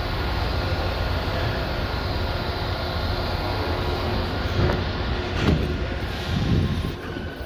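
Semi-truck diesel engine idling with a steady low rumble. A few bumps come through in the second half, and the rumble drops slightly near the end.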